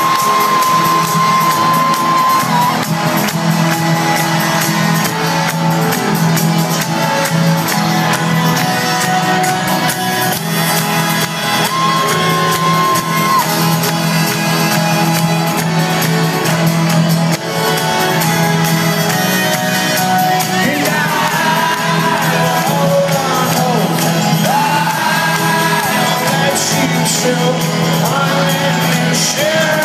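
A live folk-rock band playing loudly through a large hall, with the crowd shouting and singing along.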